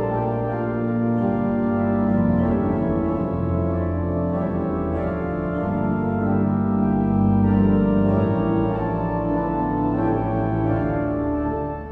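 1912 Bevington & Sons pipe organ playing loud, full sustained chords over deep bass notes. Near the end it drops suddenly to a quieter passage.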